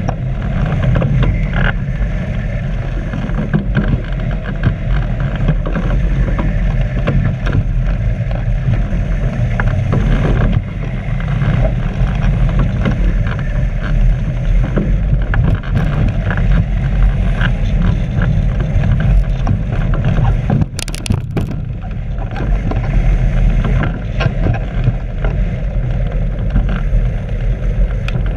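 Wind buffeting the microphone of a camera mounted on a hang glider in flight: a loud, steady low rumble of airflow, with a brief crackle about three-quarters of the way through.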